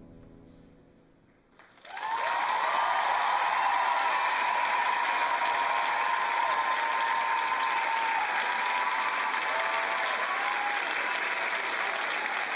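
The last notes of the music fade away, then about two seconds in a studio audience breaks into loud applause with cheering that carries on steadily.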